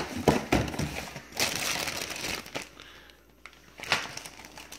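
Plastic bags and cardboard packaging rustling and crinkling as a meal-kit box is unpacked, including a plastic-wrapped bag of kale. The rustling dies down for under a second about three seconds in, then picks up again.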